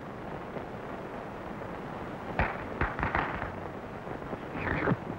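Steady soundtrack hiss with a quick cluster of sharp crackles and clicks about halfway through, and a short rustling noise near the end.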